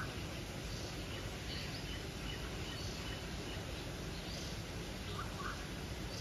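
Scattered short bird calls over a steady background noise, with a couple of lower notes about five seconds in.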